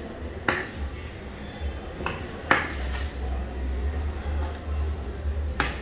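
A large knife cutting snakehead fish fillet into pieces and striking a plastic cutting board: a few sharp knocks, one about half a second in, two around two to two and a half seconds in, and one near the end, over a steady low hum.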